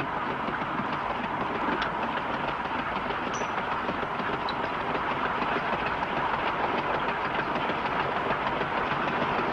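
Steady rumble of a railway passenger car rolling along the track, heard from inside the car.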